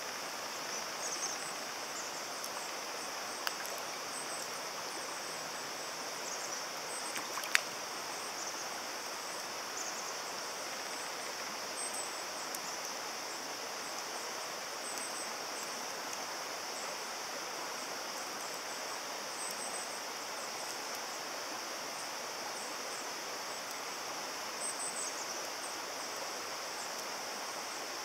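Steady rush of flowing stream water, with a single sharp click about seven and a half seconds in.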